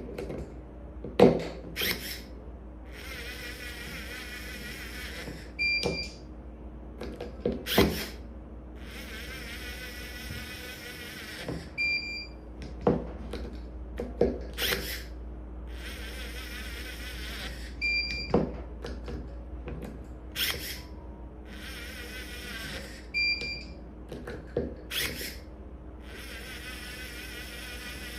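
MyTORQ brushless transducer electric screwdriver driving screws, about five rundowns of a high whirring whine, each two to three seconds long and roughly six seconds apart. Each rundown ends in a short beep. Sharp clicks and knocks fall between them, over a steady low hum.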